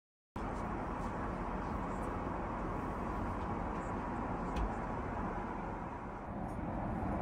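Steady rushing noise of airflow and engines inside an Airbus A380 cabin in flight. The sound drops out for a moment at the very start.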